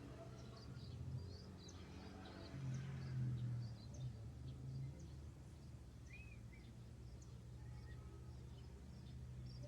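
Small birds chirping with short, high calls over a low, steady rumble of wind that swells for a couple of seconds near the middle.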